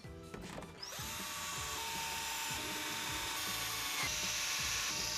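Cordless drill running steadily from about a second in, boring pilot holes through the flange of a shower wall panel.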